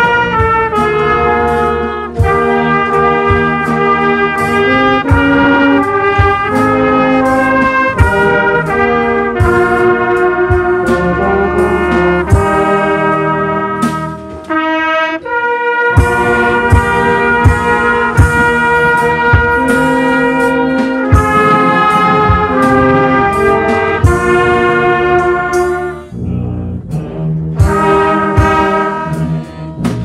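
Brass band with several trumpets playing a tune in harmony, with steady percussive hits marking the beat. The playing drops away briefly about halfway through and again near the end.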